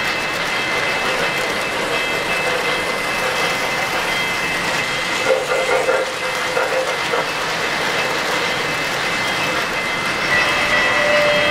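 O-gauge three-rail model freight train rolling past, a steady running noise of its wheels on the track with a faint high whine.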